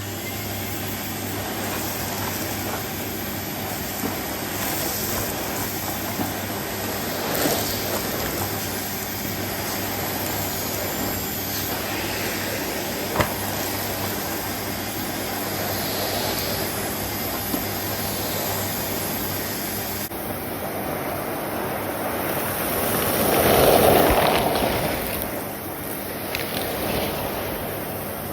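Numatic Henry vacuum cleaner, a 2004 push-button model with its genuine motor, running steadily while vacuuming up dirt from the floor. There is a single sharp click about halfway through, and the sound swells louder for a couple of seconds near the end.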